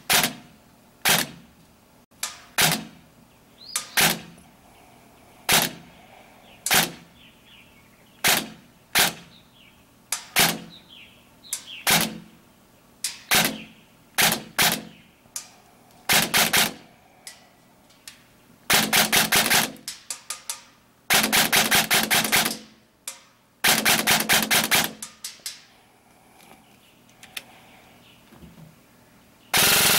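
ICS CXP M.A.R.S. airsoft electric carbine (AEG) firing single shots about one to one and a half seconds apart, then three short full-auto bursts in the last third.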